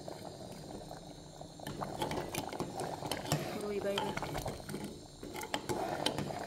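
Steel ladle stirring and mashing a thick porridge in an aluminium pot, metal scraping and clicking against the pot again and again from about two seconds in, over the thick mixture simmering.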